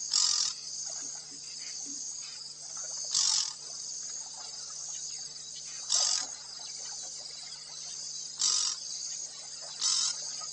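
Night insect chorus chirring steadily, with louder half-second bursts about every two to three seconds, over a faint low hum.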